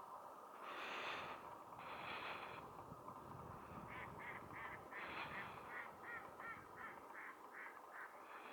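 Calls of a huge flock of Baikal teal, over a steady background hubbub. From about four seconds in there is a run of short calls, repeated about three times a second.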